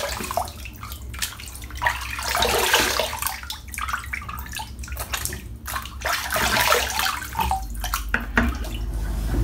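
Water from a tap running into a bathroom sink, with irregular splashing as water is scooped onto the face: rinsing off after a shave.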